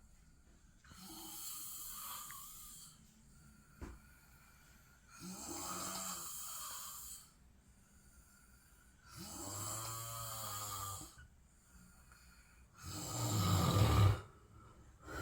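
A man snoring in his sleep: four long snores about every four seconds, the last the loudest. A short click about four seconds in.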